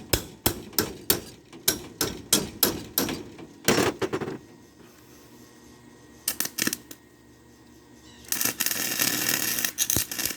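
Hammer strikes on metal, about three or four a second for some three seconds, then a short scraping burst. About eight seconds in, a welding arc starts, a steady crackling hiss, as a bar is welded onto a steel-pipe cart frame.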